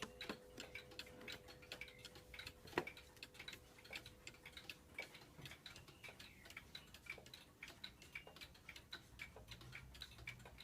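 Waterbury U.S.A. pendulum mantel clock ticking faintly and steadily. The last note of its strike dies away in the first few seconds, and there is one sharper click about three seconds in.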